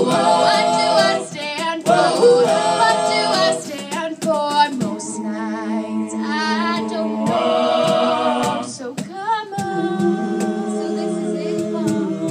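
A group of high-school students singing wordless vocal harmonies, with no instruments to be heard. They move through several sung phrases and then settle into a long held chord about ten seconds in.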